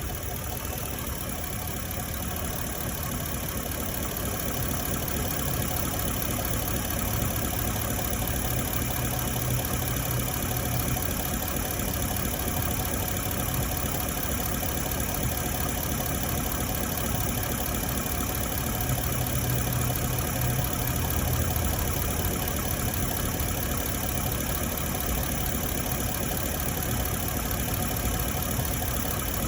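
2018 Ford F-150's 5.0-litre V8 engine running steadily, recorded for a knocking noise that the owner hears from it while driving.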